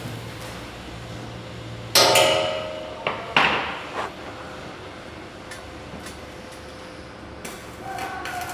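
Steel struck with a hammer: a loud ringing clang about two seconds in, then a duller clank about a second and a half later, with a few lighter knocks.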